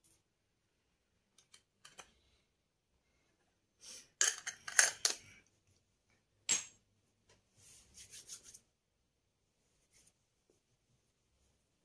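Hands rubbing together and working moisturizer into the skin: a quick run of rubbing strokes about four seconds in, a single sharp stroke a moment later, then softer rubbing.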